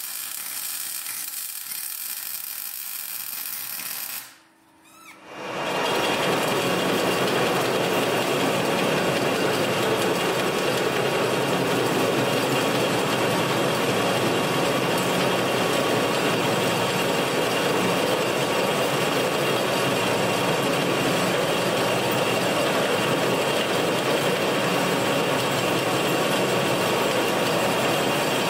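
MIG welding for about the first four seconds. Then, after a short break, a metal lathe runs steadily while its tool bit cuts a steel tube.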